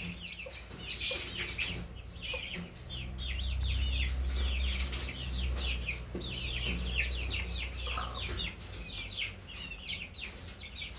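Baby chicks peeping continuously: many short, high, downward-sliding cheeps close together, over a low rumble in the middle.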